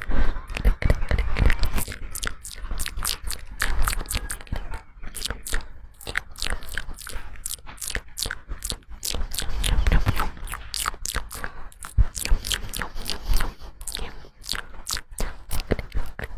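Close-up crunching: many sharp crackles in quick, irregular succession.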